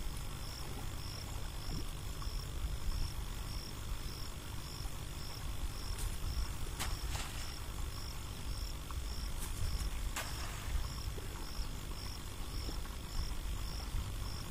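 Low wind rumble on the microphone, with an insect chirping at a steady pace of about one and a half chirps a second. A few faint clicks fall in the middle.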